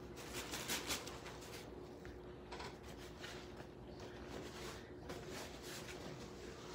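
Faint rustling and crinkling as packaging tape and a plastic bag are pulled off by hand, with a few louder crinkles about a second in, over a faint steady hum.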